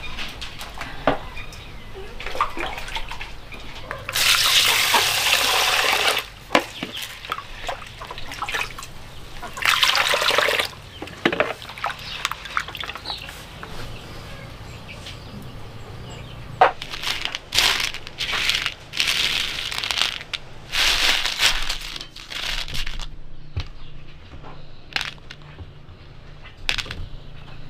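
Water poured out in two gushes of about two seconds each, then scattered light clicks and rattles of dried corn kernels being handled on a woven bamboo tray.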